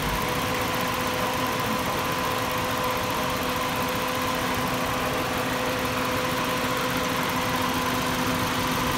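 2010 Toyota Yaris engine idling steadily, a constant mechanical hum with a steady whine.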